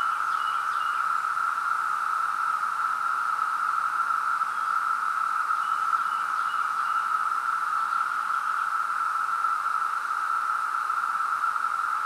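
Chorus of 17-year periodical cicadas: many males singing together as one steady, unbroken drone.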